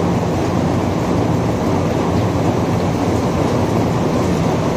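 Heavy rain falling steadily: a dense, even rush with no breaks, weighted toward a low rumble.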